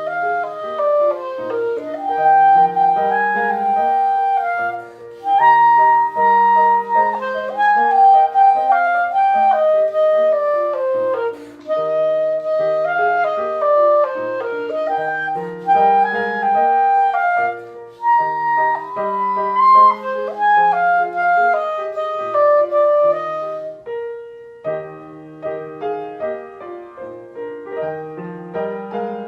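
Clarinet playing a moving melody over piano accompaniment, growing quieter in the last few seconds.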